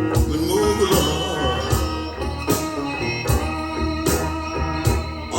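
Blues song recording with electric guitar and a steady drum beat in an instrumental passage between sung lines.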